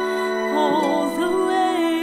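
A choir singing slow, sustained notes with vibrato over held accompaniment chords, a soft, sad-sounding arrangement.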